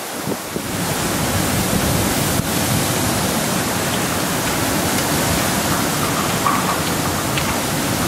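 Storm-force wind blowing hard and buffeting the microphone, a steady loud rush that grows stronger about a second in.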